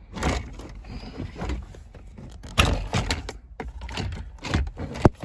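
Plastic wiring-harness connectors and dash trim being handled and unplugged: a string of clicks, knocks and rattles, loudest about halfway through, with a sharp click near the end.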